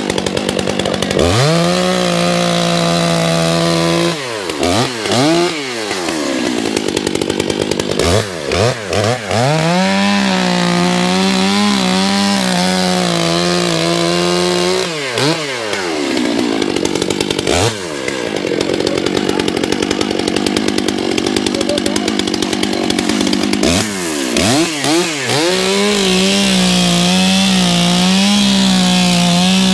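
Large Stihl two-stroke chainsaw of about 91 cc cutting into lake ice. It goes from idle to full throttle three times, holding for several seconds each time with the pitch wavering under load, and drops back to idle with quick throttle blips in between.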